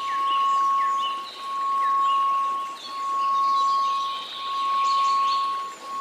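A steady 1098 Hz pure tone that swells and fades in volume about every one and a half seconds, with birds chirping over it.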